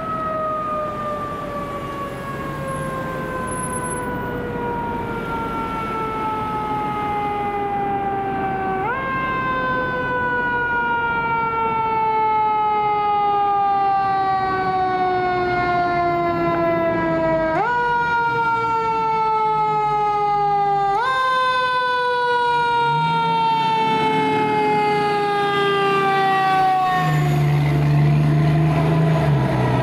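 Siren of a 2003 Pierce Arrow XT fire engine responding to a call: one wail that slowly winds down in pitch and is brought back up sharply three times. Near the end the truck's diesel engine drone grows loud as it passes close.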